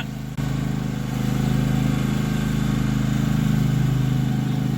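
Husqvarna GT52XLS garden tractor engine running steadily while the tractor is driven on its hydrostatic transmission, which is still slow; the sound dips briefly just at the start.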